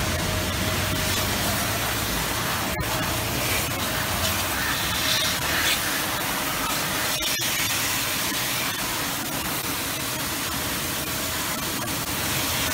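Steady hiss of water spraying from a car-wash pressure washer.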